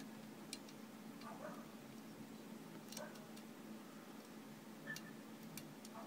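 Faint, irregular clicks of a hook pick working the pins of an Abus 60/50 brass padlock during single pin picking under light tension, about seven small ticks scattered over a few seconds.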